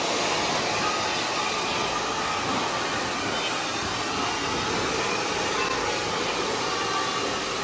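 Handheld hair dryer running steadily, blow-drying wet hair.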